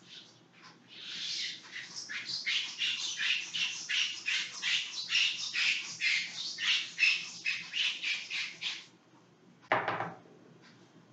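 A whiteboard being wiped clean with a cloth eraser: rapid back-and-forth rubbing strokes, about three or four a second, that stop about nine seconds in, followed by one short knock.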